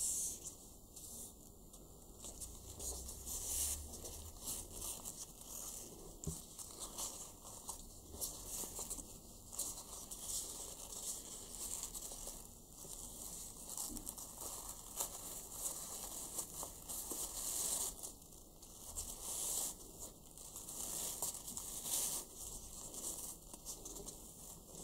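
Satin gift ribbon rustling as hands fold, loop and pull it into a bow, in soft, irregular swishes that come and go.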